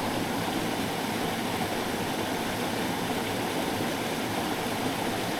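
A small mountain stream's water rushing steadily, an even, unbroken sound.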